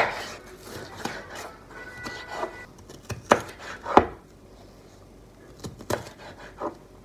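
Kitchen knife cutting a bell pepper on a cutting board: irregular sharp knocks of the blade meeting the board, about seven strokes, loudest near the start and about three and four seconds in.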